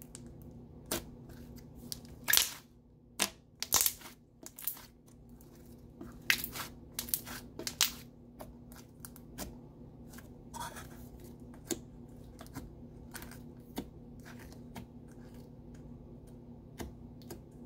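Thick opaque slime squished, poked and stretched by hand, giving off irregular sharp clicks and pops, with a faint steady hum underneath.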